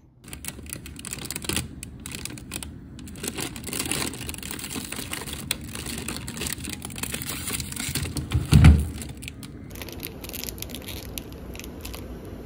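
Plastic ice-cream wrappers crinkling and rustling as a hand rummages through a full freezer drawer, with one heavy thump about eight and a half seconds in. Near the end, the crackle of an ice-cream wrapper being torn open.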